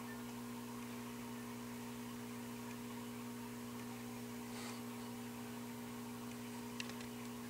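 Steady electrical mains hum with a low background hiss, with a few faint clicks near the end.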